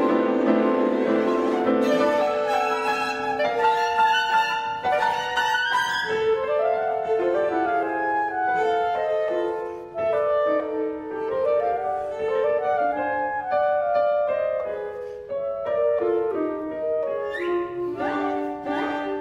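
Live chamber music for clarinet, violin, viola, cello and piano in a contemporary classical style. A dense held string chord opens the passage and gives way after about two seconds to quick, shifting short notes passed between the instruments.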